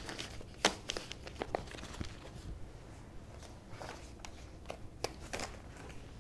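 Rustling and crinkling of something being handled close to the microphone: a run of sharp crackles and clicks, thickest in the first second and a half and again between about four and five and a half seconds in.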